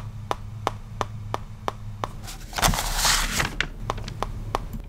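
Footstep sound effects: light, evenly spaced taps about three a second over a low steady hum, with a louder swell of hissing noise about halfway through.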